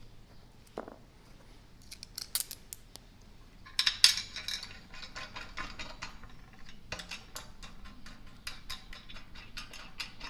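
Metal clinks and clicks of a bolt and washer being fitted and threaded in by hand to fasten a handle onto a trap bar, with a louder clatter about four seconds in and a run of quick light ticks after it.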